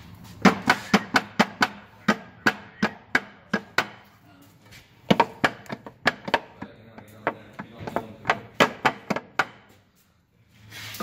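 A run of sharp knocks, about two to four a second, with two short pauses, over a faint low hum.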